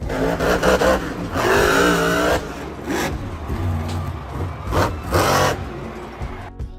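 Monster truck engine revving hard, its pitch wavering up and down, with several loud surges.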